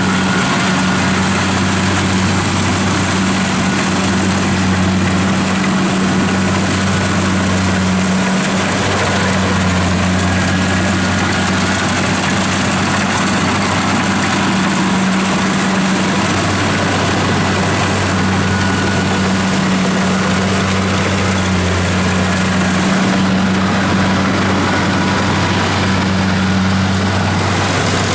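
Kubota DC-70 combine harvester's diesel engine running steadily at a constant speed, a loud, even drone with a strong low hum and heavy mechanical noise over it.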